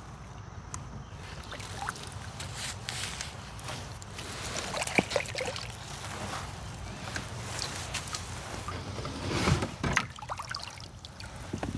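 Kayak being paddled: the paddle dipping and splashing in the water, with water trickling off the blade. There are a few sharper splashes and clicks, the loudest about nine and a half seconds in.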